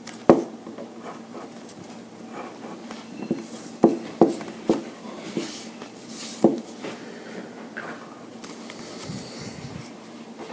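Pen scratching on paper while inking a drawing, with several sharp taps and knocks and a rustle as the paper is moved.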